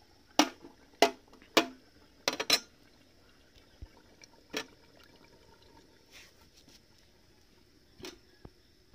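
A metal ladle tapped sharply against a plate three times about half a second apart to knock food off, then a quick run of metal clinks and one more clink a couple of seconds later as the ladle and the aluminium pan lid are handled.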